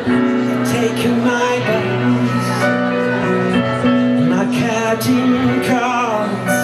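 Live band playing the instrumental link between the chorus and verse of a slow rock ballad, on acoustic guitar, electric bass and keyboard.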